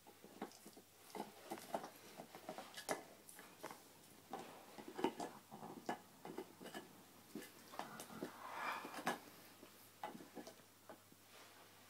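A Labrador gnawing on a deer-antler dog chew: irregular clicks and scrapes of teeth on hard antler, with a short breathy swell about two-thirds of the way in.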